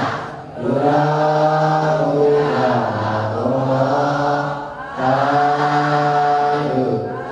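Buddhist devotional chanting: long, drawn-out phrases held on a steady low pitch, with short breaks about half a second in and about five seconds in.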